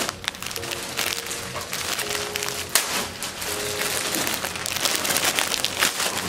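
Clear plastic garment bags crinkling and rustling as folded golf shirts are handled and pulled out of them.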